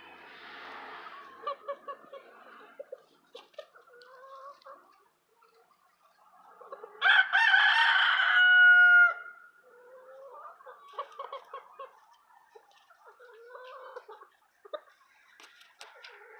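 A Black Australorp × Silver Laced Wyandotte cross rooster crowing once, a loud crow of about two seconds about seven seconds in. Soft, low clucking from the chickens before and after.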